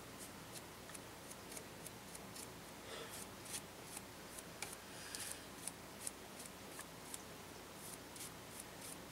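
Small paintbrush stroking an ink wash onto a plastic model building wall: faint, irregular light scratches, a few a second.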